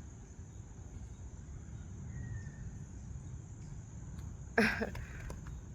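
Crickets chirping in a steady high drone over low background rumble, broken by one short, louder sound about four and a half seconds in.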